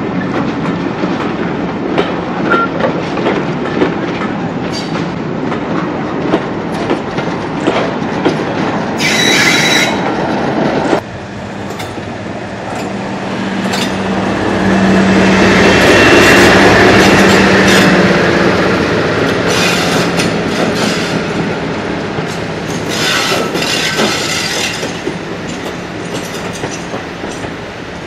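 Railway coaches rolling past with a clickety-clack over the rails, and a brief high wheel squeal about nine seconds in. Then a Class 56 diesel locomotive's Ruston-Paxman V16 engine passes close with a steady low drone, loudest about halfway through, and fades as coaches follow with another short squeal.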